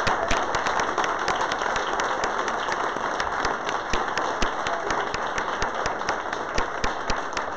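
Room of people applauding, many hands clapping together, slowly fading as it goes on.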